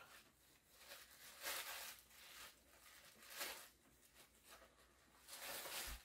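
Faint rustling of a fleece blanket being handled and unwrapped: a few soft swishes, the last and longest near the end.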